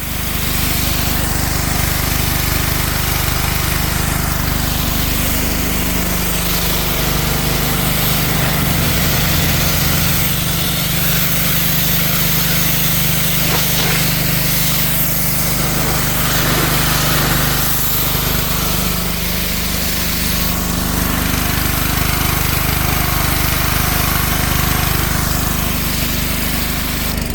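Petrol pressure washer running: its small petrol engine drives the pump steadily, under an even hiss of the high-pressure water jet. The sound cuts in abruptly at the start.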